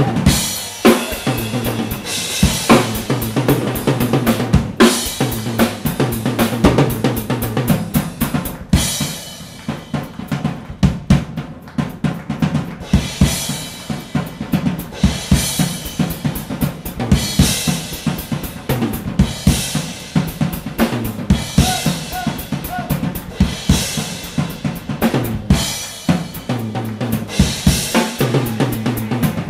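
Drum kit played live: rapid snare, bass-drum and tom strokes with repeated cymbal crashes. The playing drops to a lighter passage for a few seconds about nine seconds in.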